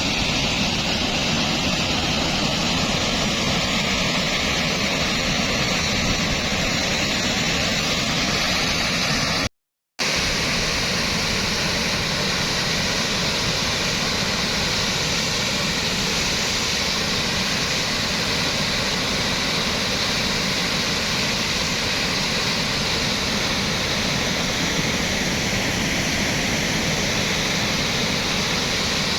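Fast-flowing floodwater rushing after heavy rain, a steady loud noise of water, with a brief break in the sound about ten seconds in.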